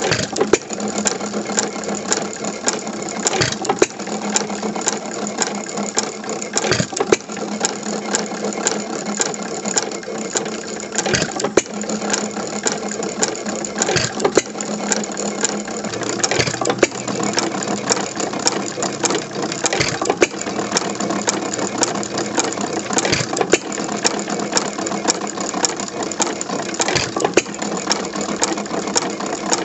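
c. 1912 Domestic Type A 1 1/2 hp sideshaft gas engine running, its valve gear and igniter clicking several times a second, with a louder beat every three to four seconds as the hit-and-miss engine fires.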